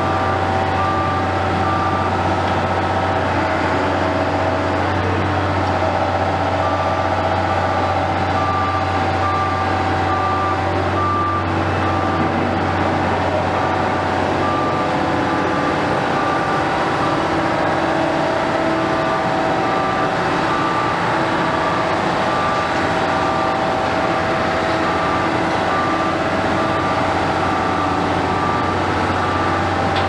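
Heavy diesel construction machinery running with a steady low drone, while a reversing alarm beeps at an even pace, stopping for a few seconds near the start.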